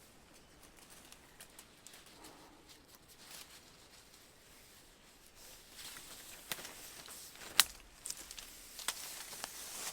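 Rustling with scattered light clicks, busier in the second half, and one sharp click about seven and a half seconds in.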